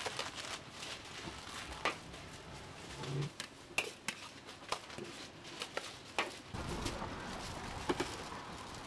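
Scattered light clicks and scrapes of a metal spatula against a wok and plate as fried rice vermicelli is dished out, giving way about two-thirds through to a softer rustle of handling on paper wrapping.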